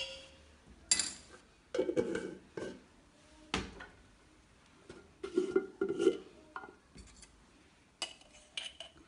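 A metal spoon clinking and scraping against an aluminium pressure-cooker pot as spices are spooned in. It comes as a series of separate knocks and short scrapes, with gaps between them.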